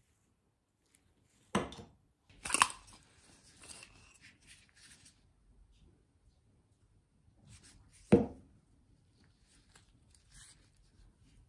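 Wooden and brass parts of an antique hand-crank massager being handled and set down on a workbench: three sharp knocks, about one and a half, two and a half and eight seconds in, with light clicks and rustling between.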